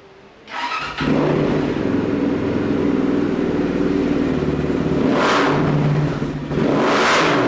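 Zongshen CB250-F 250 cc water-cooled four-valve single-cylinder engine of a dirt bike starting up about half a second in and settling into a steady idle. The throttle is blipped twice, near the middle and near the end.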